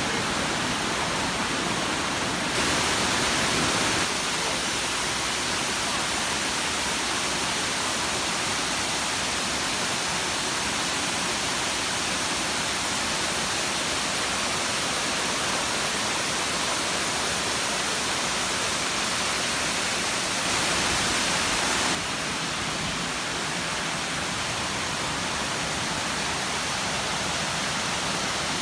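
Waterfall cascades rushing: a steady, even wash of falling water that jumps abruptly in loudness a few times.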